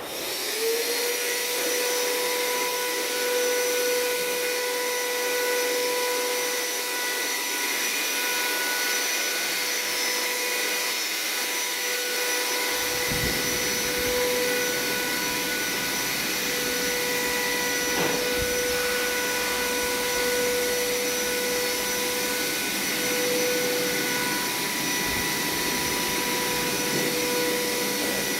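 A high-speed electric motor, such as a woodworking power tool, spins up with a quickly rising whine and then runs at a steady pitch over a hiss. A few sharp knocks sound partway through.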